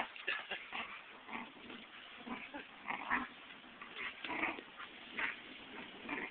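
A puppy making short, irregular vocal noises, many times over, as it mouths and pushes a basketball.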